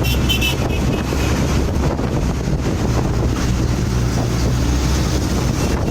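Wind buffeting the microphone: a loud, steady low rumble with a rushing hiss above it.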